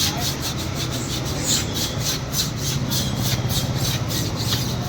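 A new tyre being scrubbed in quick back-and-forth strokes, about four a second, washing off the light blue coating so that it comes up white. A steady low hum runs underneath.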